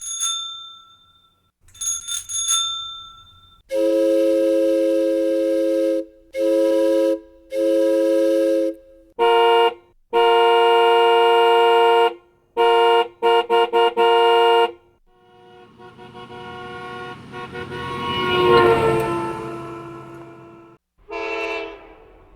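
A run of vehicle signal sound effects. First two short bell rings, then three long blasts of a multi-tone chord horn, then a choppier series of horn toots in another chord. After that a horn sounds as a vehicle passes: it grows louder, drops in pitch as it goes by and fades, and a last short horn blast comes near the end.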